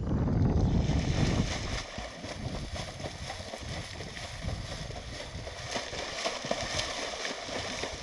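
Swimmer's legs kicking and splashing in seawater: a run of irregular splashes from about two seconds in. A low rumble is loudest in the first two seconds.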